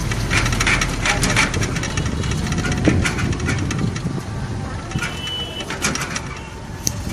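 Running noise of a moving vehicle: a low engine and road rumble with frequent rattles and knocks, easing off somewhat in the second half, and a short high tone about five seconds in.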